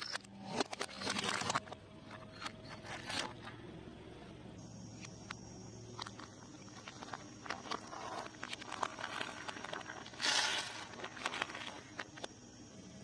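Close-miked eating sounds: crunchy bites and chewing with scattered sharp mouth clicks. Two louder crunching bursts stand out, one near the start and one about ten seconds in.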